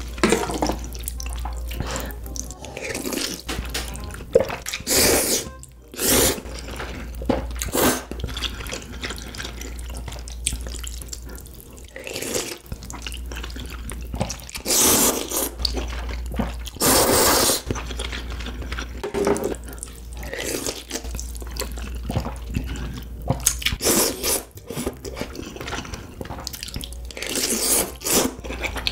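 Close-miked slurping and chewing of spicy instant ramen noodles: irregular wet slurps and mouth sounds, with a few longer slurps lasting about a second around the middle.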